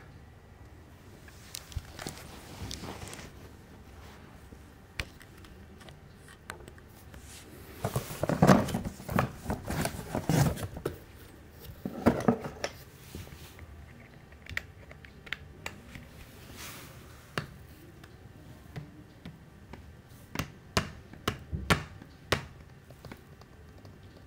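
Handling noise from plastic moon lamps being touched and moved on their wooden stand and the floor: scattered taps and knocks, with a busier run of knocking and rustling about eight to eleven seconds in and a few sharp clicks near the end.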